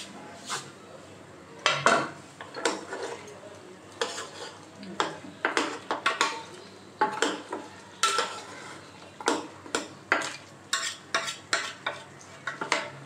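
Steel ladle stirring and scraping calf trotters in thick masala in an aluminium pot, with irregular clinks against the pot about once or twice a second. The masala sizzles underneath: the trotters are being fried in the spice paste before the stock goes in.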